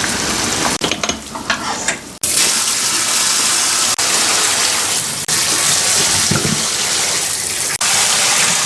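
Kitchen tap running hard while parboiled pork back bones are rinsed under it, water splashing into the sink. The steady splashing breaks off abruptly a few times.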